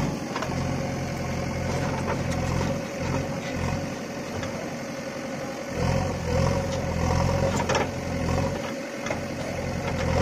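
JCB 3DX backhoe loader's diesel engine running under the working load of the backhoe arm, its loudness rising and easing as the bucket digs into the soil.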